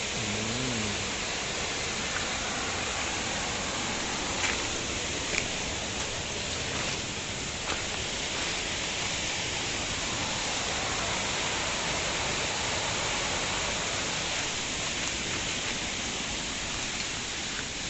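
Mountain stream water rushing with a steady hiss, with a few brief clicks or knocks about four to eight seconds in.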